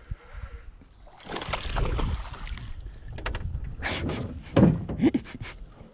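Handling noise in a small aluminum fishing boat while a hooked fish is brought alongside: a rushing noise, then a run of sharp clicks and knocks, the loudest a heavy thump a little past halfway.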